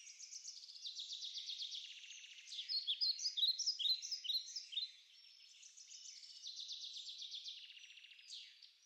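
Songbird singing: a long, rapid high trill, then a run of quick separate chirps about two and a half seconds in, then another long trill.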